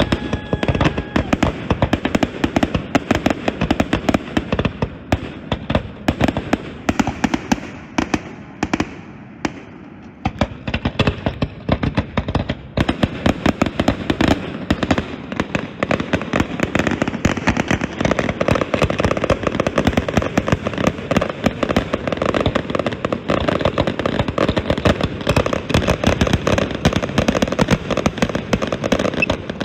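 Fireworks finale: a rapid, continuous barrage of bangs and crackling, with a whistling shell at the very start. The barrage thins for a couple of seconds about eight seconds in, then builds dense again.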